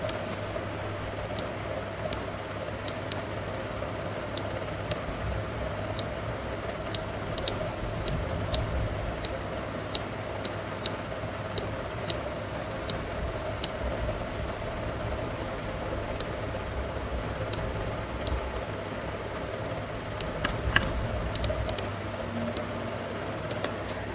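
Computer mouse clicking at irregular intervals, roughly one click a second with a quicker run of clicks near the end, each click placing a point on a selection path. A steady low hum runs underneath.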